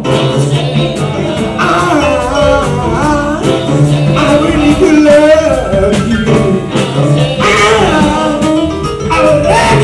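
Live rock band playing: men singing over an electric bass and a Roland Juno keyboard.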